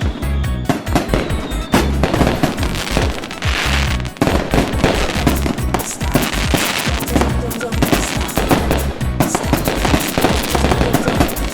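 Fireworks going off in rapid, dense volleys of sharp bangs and crackling, over music with a deep repeating bass.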